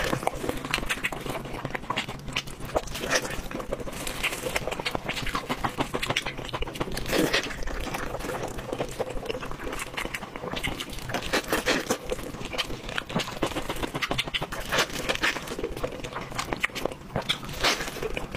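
Close-miked wet eating sounds: chewing, lip smacking and sucking on braised pork trotter, as a rapid, irregular patter of small clicks. Soft tearing of the meat by gloved hands mixes in.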